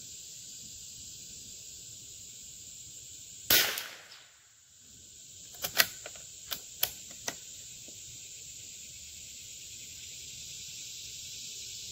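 A single .22 LR bolt-action rifle shot from a Howa M1100 about a third of the way in. About two seconds later comes a quick run of five small metallic clicks as the bolt is worked. Crickets chirr steadily underneath.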